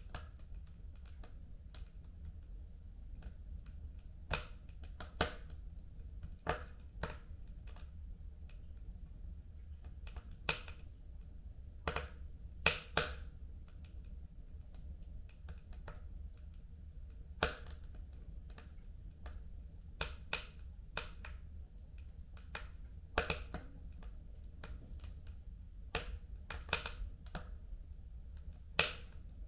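Wood fire burning in a home fireplace: irregular sharp crackles and pops over a low steady rumble, with a few louder pops about halfway through and again near the end.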